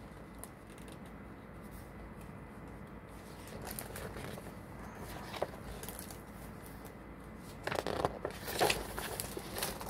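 Pages of a hardcover picture book being handled and turned: soft paper rustling and scraping, a light click about five seconds in, then a few louder rustles near the end.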